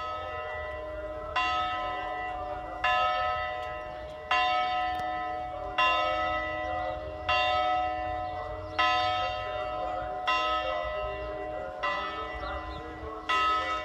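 A single Orthodox church bell tolling at a slow, even pace, one stroke about every second and a half. Each stroke rings on with the same hum and overtones until the next.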